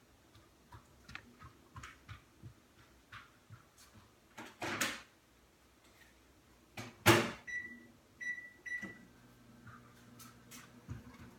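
Microwave oven used a few steps away: a clunk and then a louder thud of its door shutting, a few short keypad beeps, then the oven's low steady hum as it starts running.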